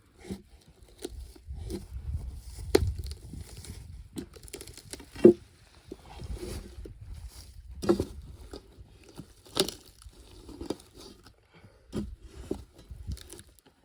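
Bark being prised off a freshly cut ironbark log with a crowbar: irregular cracking, tearing and crunching as the loosened bark splits away from the sapwood, with a few sharper cracks.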